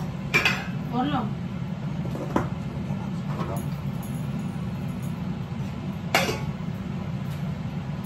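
Metal utensils clinking against a large kadhai on a gas stove, a few sharp clinks about half a second, two and a half and six seconds in, over a steady low hum.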